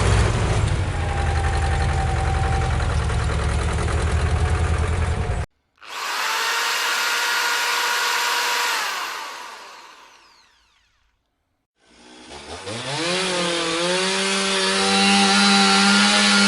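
A string of separate machine sound effects: a loud low rumble with a fast pulse that cuts off suddenly, then a hissing noise with a few steady tones that fades away, then after a brief silence a motor spinning up in pitch and settling into a steady whine.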